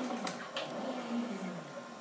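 Milling machine spindle with a drill chuck winding down after being switched off. Its hum falls steadily in pitch and fades, with a sharp click about a quarter second in.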